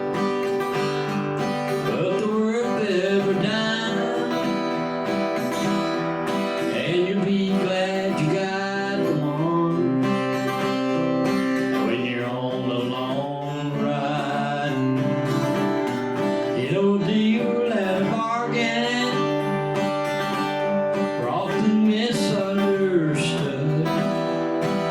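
Live acoustic country song: an acoustic guitar strummed steadily while a man sings the melody.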